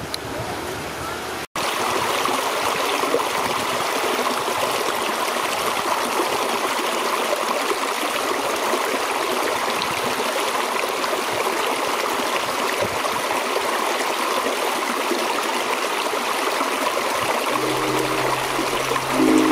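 Shallow river running over rocks and stones: a steady rush of water after a brief cut about a second and a half in. Music comes in near the end.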